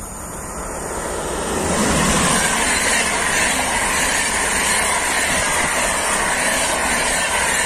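A train passing close by on the rail line. The running noise builds over the first two seconds, then stays loud and steady.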